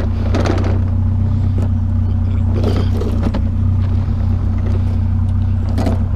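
Vehicle engine idling with a steady low hum, with a few short knocks and scrapes over it, about half a second in and again around three seconds in.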